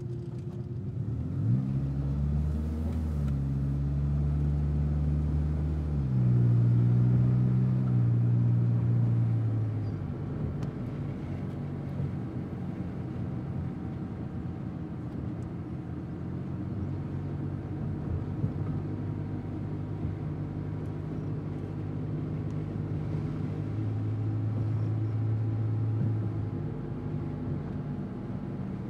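Car engine and road noise while driving. The engine note rises quickly about a second and a half in, changes pitch again around six seconds, then settles to a steadier, quieter cruise from about ten seconds, swelling briefly once more near the end.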